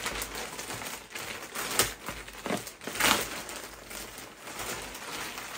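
Plastic poly mailer bag crinkling and rustling as it is handled and opened, with a couple of louder crackles about two and three seconds in.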